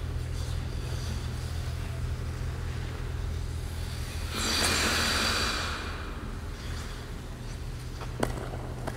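Figure skate blades scraping and hissing on the ice for a second or two about halfway through, over a steady low hum, with a single sharp click near the end.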